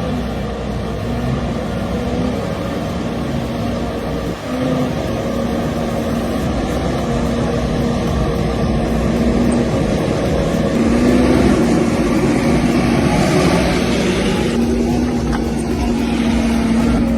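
Engine of a heavy forestry machine running with a steady drone, its pitch stepping up slightly a few times. It briefly drops out about four seconds in and gets louder and hissier in the middle.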